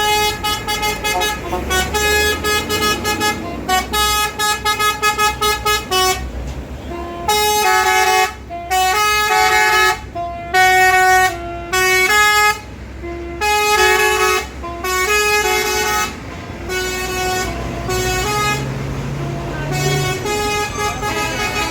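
Bus's Basuri 'telolet' musical air horn playing a tune: a rapid string of short toots for the first several seconds, then longer notes stepping between pitches, with the engine running beneath.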